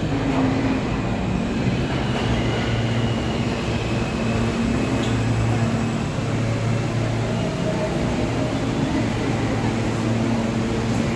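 New York City subway train pulling into the station and slowing to a stop alongside the platform, a steady low rumble throughout.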